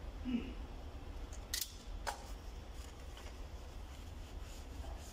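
Two sharp clicks about half a second apart, with light rubbing, as a small car part is handled and wiped with a rag, over a steady low hum.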